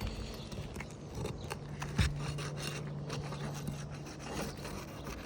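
Scraping and rubbing with irregular sharp clicks as a hand tool is worked under an asphalt roof shingle to break its adhesive seal, the start of removing it.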